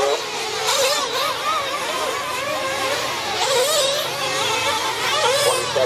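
Several RC truggies racing, their high-pitched motor whine rising and falling as they accelerate and slow through the corners, with two louder rushes of noise about a second in and near the middle.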